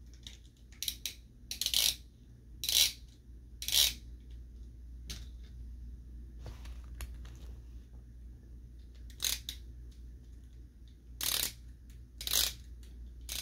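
Plastic Beyblade tops and launchers being handled and readied for a battle: about ten short rattling, scraping sounds at uneven intervals.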